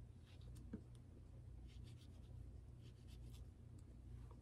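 Faint scratching and scraping as a pear is cored by hand, the core not coming out easily, with one light click about three quarters of a second in.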